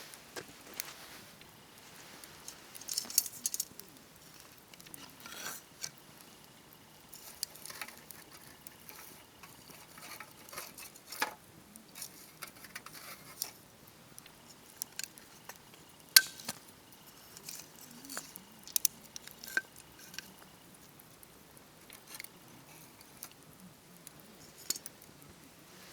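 Wood campfire crackling: irregular sharp pops and snaps over a faint hiss, with a few louder snaps, the loudest about sixteen seconds in.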